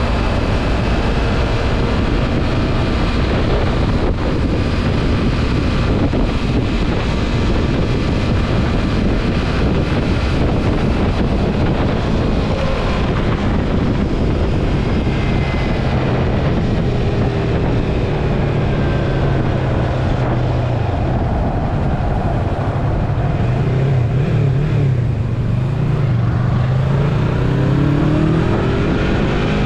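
Yamaha MT-03 motorcycle riding along, its engine running under wind rush on the microphone. The engine note comes up stronger about halfway through and rises in pitch near the end as it revs.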